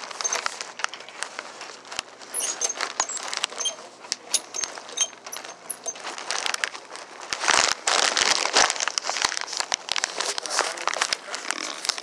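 Rustling, crackling and clicking handling noise as a plush toy and hand rub and knock against the phone, with a louder stretch of rubbing about eight seconds in.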